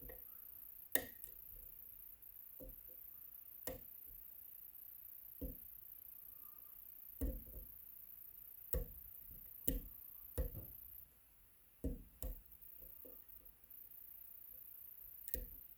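Light metallic clicks and taps from lock picks working the pins of an Agent LS5 dimple lock held in a vise, irregular single clicks every second or two.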